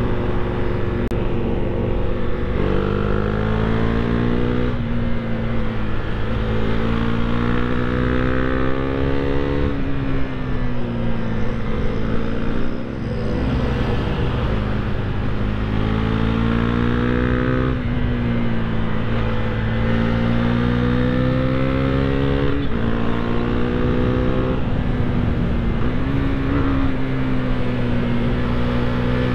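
Husqvarna Svartpilen 401's single-cylinder engine pulling hard while riding. Its pitch climbs several times, each climb ending in a sudden drop at a gear change or a slower fall as the throttle closes.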